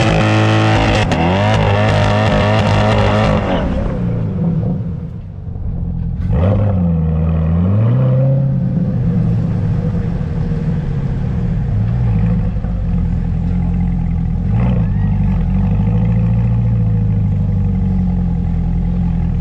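C8 Corvette's V8 revving hard with a wavering pitch for the first few seconds, as in a drag-strip burnout, then dropping off. About six seconds in it gives one quick rev, then runs at low revs with small swells in pitch while it creeps up to stage.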